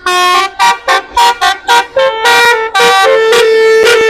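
Basuri 'telolet' musical bus horn playing a tune: a quick run of short notes that jump in pitch, then from about halfway longer held notes.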